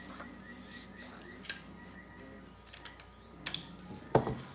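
Hands handling plastic face-shield parts: faint rustling with a few small clicks, and a sharper knock near the end.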